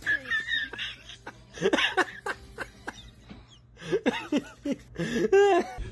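A person laughing in short bursts, over scattered sharp clicks and knocks.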